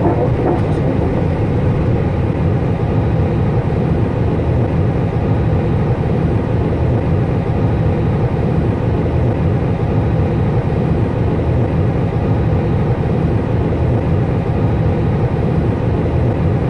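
Steady cockpit noise of an Airbus A320 taxiing onto the runway: the even, low rumble of its jet engines at taxi power mixed with air and fan hiss.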